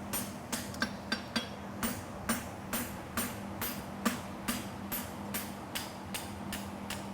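Blacksmith's hammer striking hot steel bar stock on an anvil while forging a horseshoe, in a steady rhythm of about two to three ringing blows a second, a few lighter taps mixed in. A steady low hum runs underneath.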